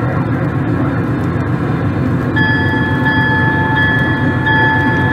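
HO scale model train cars rolling along the track with a steady low rumble. From about halfway a high, steady tone joins in, breaking off and coming back a few times.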